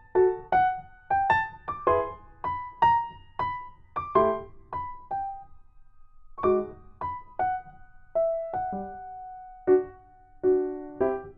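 Background music: a solo piano playing an unhurried melody of single notes and chords, each note ringing and fading, with a short pause about halfway through.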